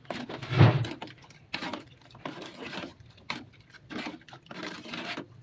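A metal spoon stirring instant milk pudding powder into water in a metal saucepan, scraping and knocking against the pan in repeated strokes, with a louder knock about half a second in.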